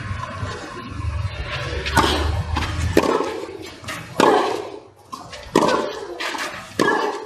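Tennis ball hit back and forth with racquets in a baseline rally on a clay court: about five sharp hits a second or so apart, starting about two seconds in. A low rumble runs under the first part.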